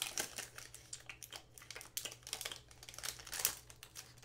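Foil wrapper of a hockey trading-card pack crinkling as it is torn and peeled open, in irregular crackles with a louder rustle about three and a half seconds in.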